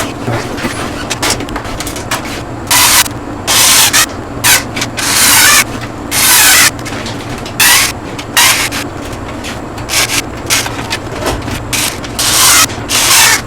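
A series of short rubbing or scraping noises, about a dozen, some brief and some lasting close to a second, over a steady low hum.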